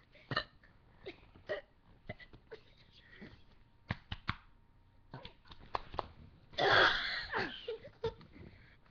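A person burping: scattered short gulps and throat clicks, then one loud burp lasting about a second, about six and a half seconds in.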